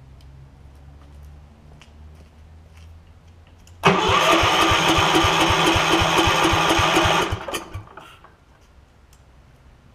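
Kohler single-cylinder engine of a Gravely walk-behind tractor being cranked by its electric starter for about three and a half seconds, starting about four seconds in, with an even beat of compression strokes about four or five a second. It turns over but does not catch, for lack of spark, and stops abruptly.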